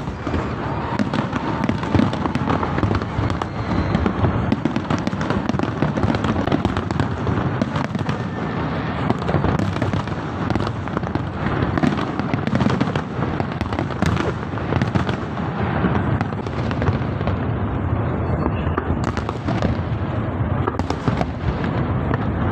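Large aerial fireworks display: a continuous barrage of shell bursts, with many sharp bangs coming in quick, irregular succession over a dense rumble.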